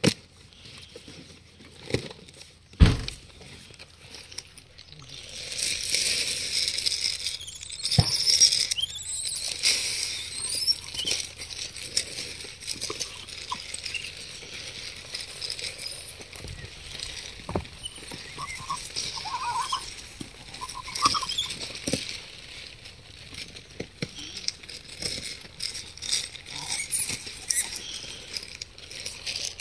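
Gray langurs feeding on apples close by: scattered sharp crunches and knocks with rustling, over a steady high hiss that starts about five seconds in. A few short, high chirps come about twenty seconds in.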